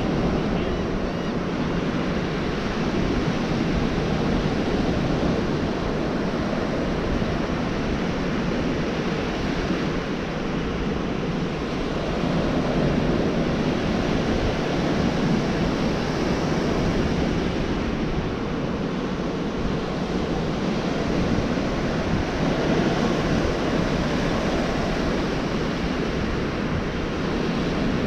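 Ocean surf breaking and washing up on a beach: a continuous rushing wash that swells slightly as larger waves come in.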